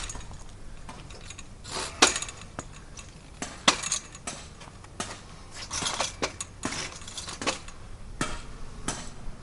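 Irregular metallic clinks, clicks and rattles from a pop-up canopy's metal frame being handled and set up.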